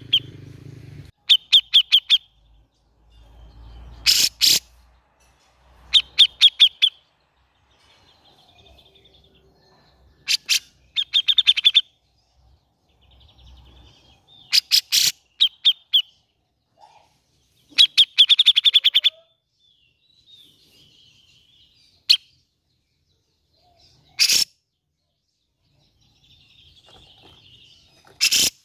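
Cucak jenggot (grey-cheeked bulbul) calling in short bursts of rapid clipped notes, about ten a second, each burst under a second long and repeated every few seconds with quiet gaps between.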